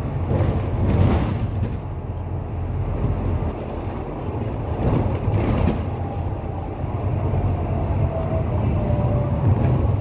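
Ride noise of a moving city bus heard from inside: a steady low engine and road rumble. Noise swells about half a second in and again about five seconds in, and a faint whine falls slightly in pitch in the second half.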